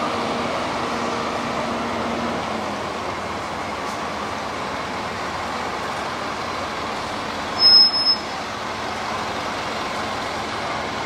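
Double-decker bus driving past close by, its engine running, over steady street traffic noise. About three-quarters of the way through comes a short, loud high-pitched squeal, twice in quick succession.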